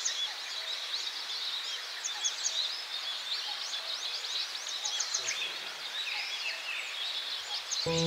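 Dawn chorus of many small birds singing before daybreak: a dense mix of high, quick chirps and trills, one over another, without a break.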